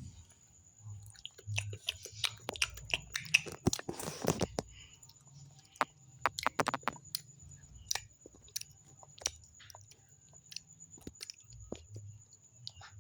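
A child chewing and biting soft candy close to the microphone: many short wet clicks and smacks, busiest in the first half.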